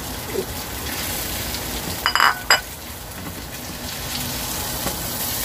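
Fish frying in a pan with a little oil, a steady sizzle, with a couple of sharp metallic clinks about two seconds in.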